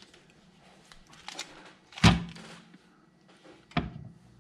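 Knocks and thuds as a wrapped block of cheese and a knife are set down on a bamboo cutting board: a few light taps, a loud knock about two seconds in that rings briefly, and another sharp knock near the end.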